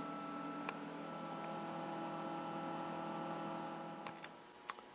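Steady electrical hum made of several held tones, from powered-up bench electronics and a tube TV set, with a few faint clicks. The hum fades out about four seconds in.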